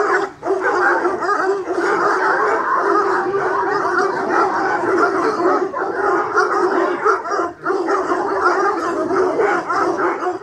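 A large pack of Anglo-French tricolour hounds baying and yelping all together in one dense, continuous din, clamouring while held back from their feed. The din dips for a moment about half a second in and again a little past the middle.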